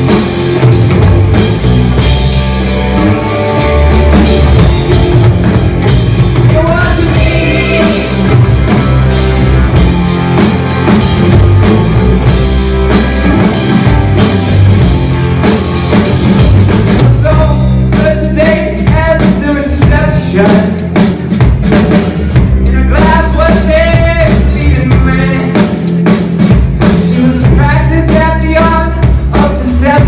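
Live rock band playing in a hall, heard from the audience: drum kit, electric guitars, bass and keyboards, with a melody line coming in over the band about halfway through.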